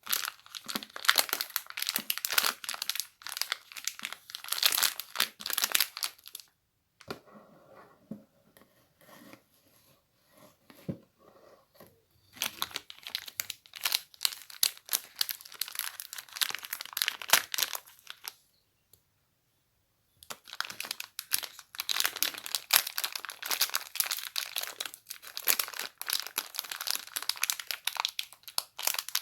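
Rustling and crinkling of a crumpled material being handled, in three long bouts of dense crackles with a softer, sparser stretch between the first two and a short pause before the last.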